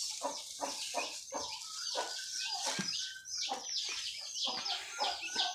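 A crate of newly hatched turkey poults peeping: a continuous run of short, high, falling peeps from many chicks at once, several a second.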